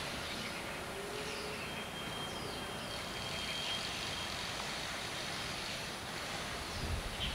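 Steady outdoor background noise, with a few faint high chirps and a thin high tone held for about two and a half seconds in the first half, and a low rumble near the end.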